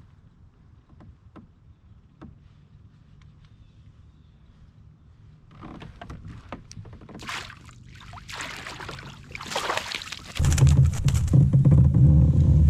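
A fishing kayak moving on water: a few light clicks, then water splashing and sloshing at the hull. A loud low rumble sets in suddenly about ten seconds in.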